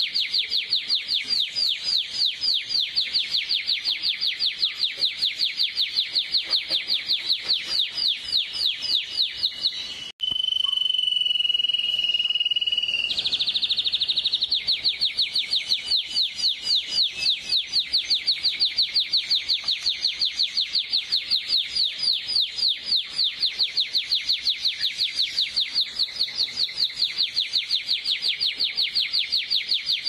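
Canary singing a fast, even trill of rapidly repeated high chirps. About ten seconds in the song breaks off briefly, holds one steady high note for about three seconds, then goes back into the rapid trill.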